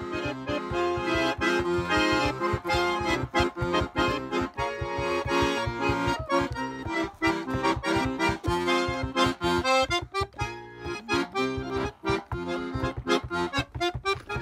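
Instrumental background music: sustained chords over a steady beat.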